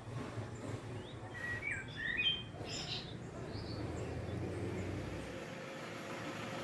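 Birds chirping: a few short rising chirps, then a quick cluster of chirps about one and a half to two and a half seconds in, over a steady low background hum.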